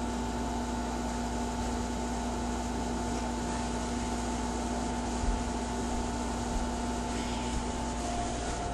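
A steady machine hum: a few constant tones over a low rumble and an even hiss.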